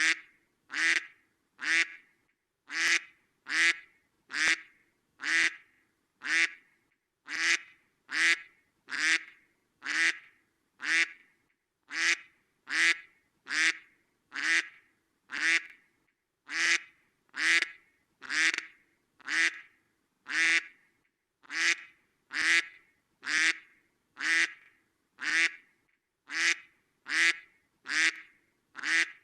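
A duck quacking over and over in short, separate quacks at a steady pace of close to two a second.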